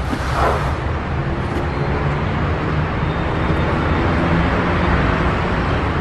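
City traffic noise: a steady rumble of road vehicles with a faint engine hum, slowly building.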